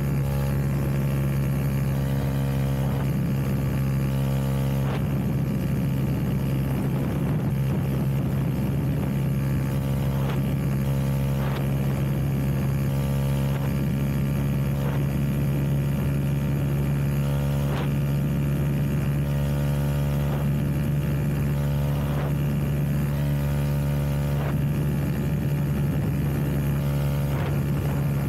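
Honda Grom's cammed 125 cc single-cylinder engine running through a 2 Brothers Racing exhaust at a steady, unchanging pitch.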